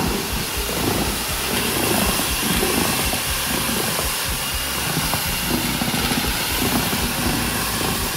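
A motor-driven blower running steadily, giving a loud, even rush of air.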